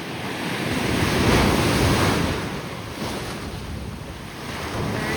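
Ocean surf breaking on a beach: one wave washes in, swelling to a peak about a second and a half in and fading, with a smaller surge near the end, and wind buffeting the microphone.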